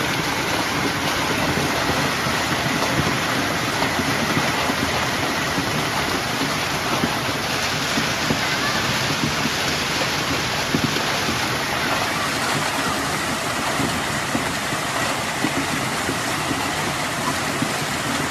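Heavy rain pouring down in a steady, dense hiss, with a few sharper taps standing out briefly.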